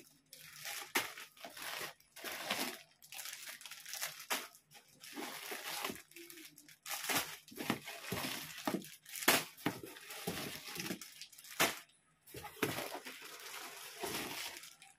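Plastic bags and cellophane wrapping crinkling and rustling as they are handled and pulled out of a cardboard box, in irregular bursts with sharp crackles.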